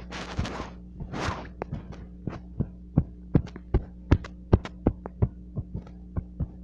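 Two short noisy whooshes, then a run of sharp clicks or knocks, irregular at about two or three a second, over a steady low electrical hum.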